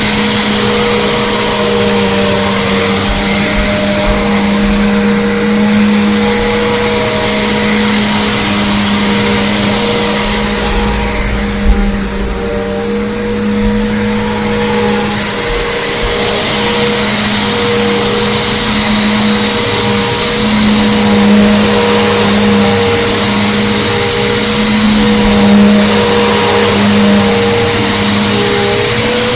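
Bissell Big Green Commercial BGU1451T upright vacuum cleaner running steadily with a high motor whine, with a single brief thump about twelve seconds in.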